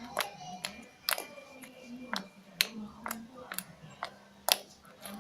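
Homemade slime being squeezed and poked by hand, giving about a dozen sharp, irregular clicks and pops.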